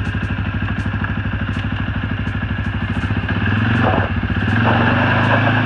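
2015 CFMOTO CFORCE 500 ATV's single-cylinder engine idling with a steady, even pulse. About four and a half seconds in, its note rises a little as the throttle opens and the quad moves off.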